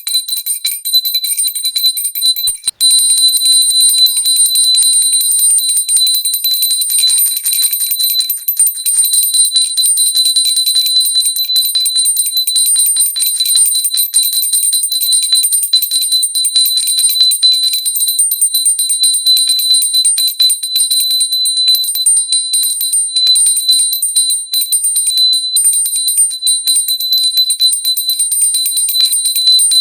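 Pooja hand bell rung rapidly and without pause, its clapper striking continuously under a steady high ringing. There is a momentary break about three seconds in.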